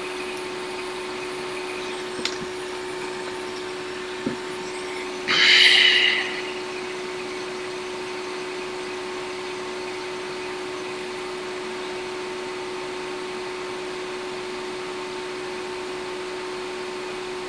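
Steady hum of a small fan motor at a soldering bench, with one fixed tone. About five seconds in, a loud hiss lasts roughly a second; there are faint clicks near two and four seconds in.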